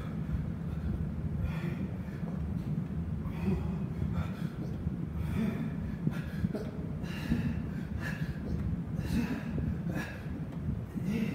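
A man breathing hard through a set of sit-ups, with a forceful breath every one to two seconds, over a steady low hum.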